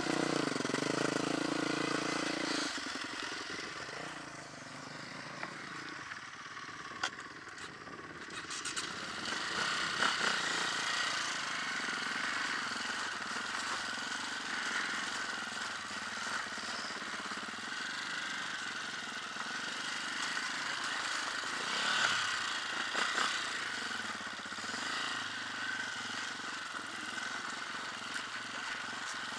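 Dirt bike engine running as the bike is ridden along a rough trail, heard from the rider's helmet camera. The engine's steady low note changes about three seconds in as the ride gets under way.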